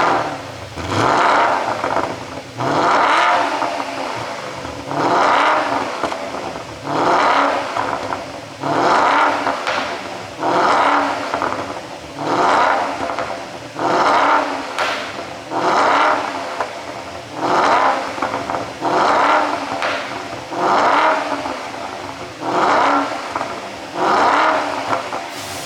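Porsche Panamera 4S engine blipped over and over, about once every two seconds, each rev rising and falling with crackling pops in the exhaust as it drops back: the pops-and-bangs overrun effect of an ECU pop tune.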